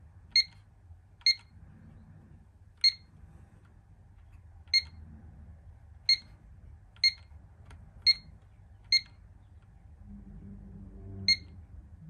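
Pyronix burglar alarm keypad beeping once at each key press: nine short, high beeps at uneven intervals as the keys are pressed to program an alarm zone.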